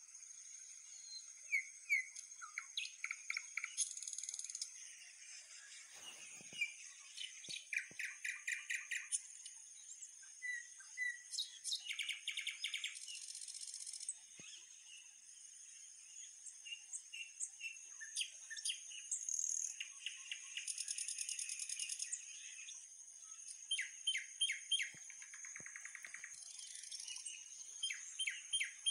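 Several birds singing and calling in quick trills and runs of repeated notes, over a steady high-pitched drone.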